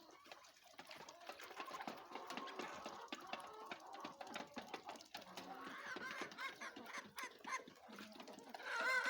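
A mixed domestic poultry flock calling: chickens clucking in many short calls, with a louder bird call near the end.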